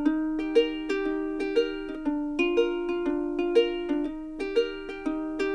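Background music: light plucked-string tune, ukulele-like, with notes plucked at about two a second in a steady rhythm.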